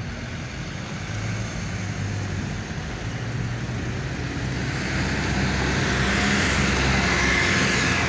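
Street traffic noise: a motor vehicle's engine and tyres growing louder, loudest near the end.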